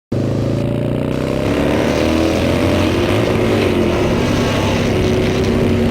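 Harley-Davidson motorcycle engine running under way, its note easing down over the first few seconds and then holding steady.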